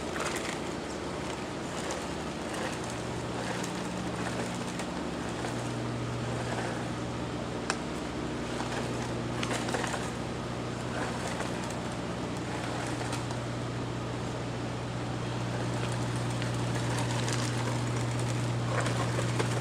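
GPTOYS S920 1/10-scale RC truck's twin brushed motors running in low gear with a steady hum that firms up about a quarter of the way in, while the truck crawls over creek rocks. Scattered sharp clicks and knocks sound now and then.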